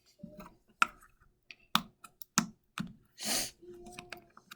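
Glittery slime being squeezed and worked in the hands, its trapped air popping in a string of sharp, irregular clicks, with a short rushing squelch a little past three seconds in.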